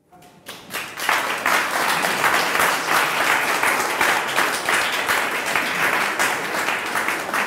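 Audience applauding, a dense patter of many hands that swells up within the first second and then holds steady.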